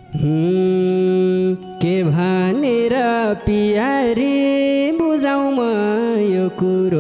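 A voice singing a Nepali dohori folk melody in long, ornamented phrases with held notes, broken by three short pauses.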